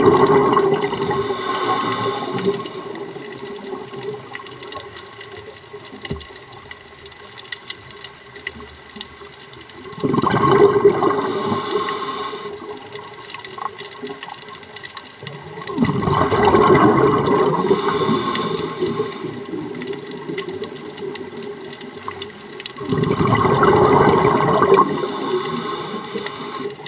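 Scuba diver breathing through a regulator underwater: four rushing surges of exhaled bubbles, one every six or seven seconds, with quieter inhales between.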